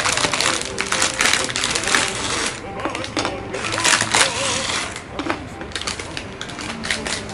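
Close, dense crinkling and crackling of a plastic wrapper with light clicks and taps as pastry bars are handled and set down on a glass plate, thinning out about five seconds in.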